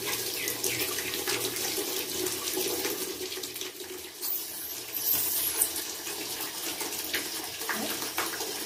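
Water running steadily from a tap, with a few light handling clicks and a brief louder noise about five seconds in.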